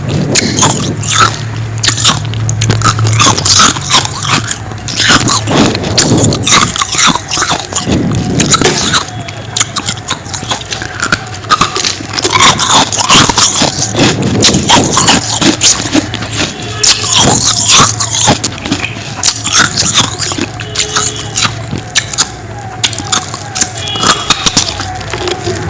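Frost ice being bitten and chewed: a dense, loud run of crisp crunches and scraping crackles.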